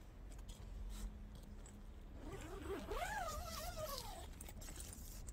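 A tent door zipper being worked, with faint rustling of fabric. A short wavering pitched sound rises and falls around the middle.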